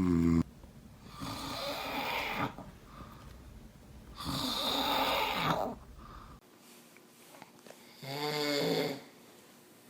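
A man snoring: three long snores about three seconds apart, the last one more pitched and buzzing. A brief pitched voice sound comes right at the start.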